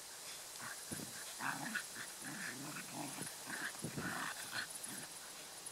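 Two dogs play-fighting, with a run of short, low growls and grumbles starting about a second in and easing off near the end. The growling is play, not aggression.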